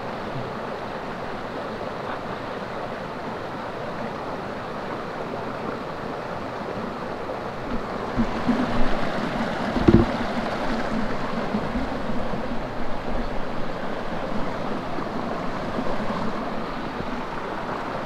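Stream water rushing steadily, growing a little louder about halfway through, with a few low thumps around then.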